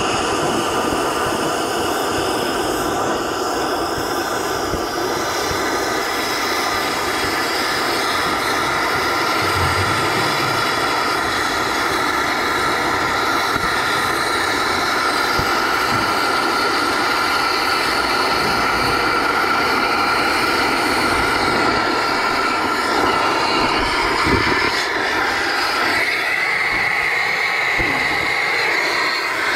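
Cutting torch burning with a steady loud hiss as it cuts off a seized pin that could not be driven out. Near the end the steady tone within the hiss shifts higher.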